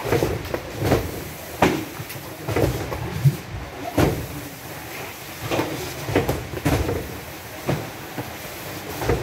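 Repeated thuds and knocks of cartons of cup drinking water being handled while unloaded from a truck and stacked, at an uneven pace of roughly one every half second to a second.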